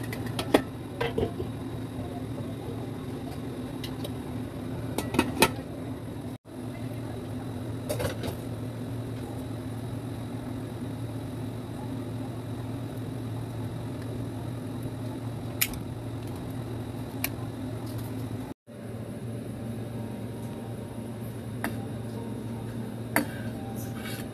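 A steady low mechanical hum, like a kitchen appliance or fan motor, with a few sharp metal clinks from a stainless steamer pot and its lid. The hum breaks off abruptly twice.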